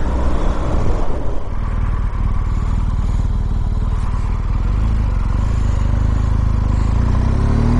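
BMW R1200GSA's boxer-twin engine running under way at a steady pace, with road and wind noise. The engine note rises near the end as it picks up speed.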